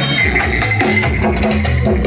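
Music with a heavy bass line and a drum beat.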